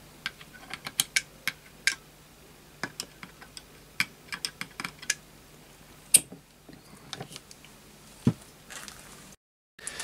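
Scattered light clicks and ticks from a thumb-lever oil can being pumped and from the parts of a small Eachine ET1 model hit-and-miss engine moving as its flywheel is turned over by hand during oiling. There is a duller knock about eight seconds in.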